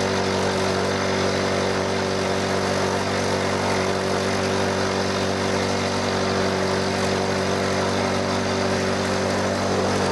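Milling machine spindle turning a high-speed-steel end mill through a heavy cut in steel: a steady machine hum with cutting noise over it. The cut is too deep, throwing blue chips, the sign of overdoing it and overheating the cutter without coolant.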